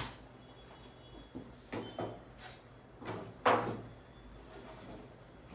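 Lidded plastic food containers handled on a stone countertop: several knocks and clatters as they are picked up and set down, the loudest about three and a half seconds in.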